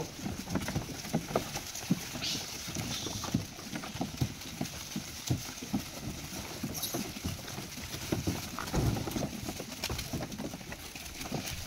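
A troop of monkeys scrambling over a car's open boot and the dry leaf litter around it, making irregular light taps, knocks and rustles, with a louder thump about nine seconds in.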